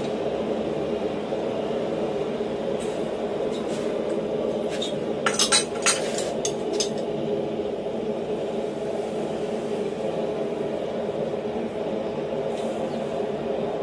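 A quick cluster of sharp metal-on-metal clinks as a steel twisting wrench is fitted onto a red-hot railroad spike held upright in a bench vise, over a steady background drone.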